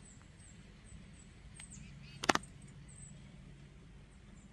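Small birds chirping with short, high, falling chips every fraction of a second, over a steady low hum. About two seconds in, a single brief, loud, sharp squeak stands out above them.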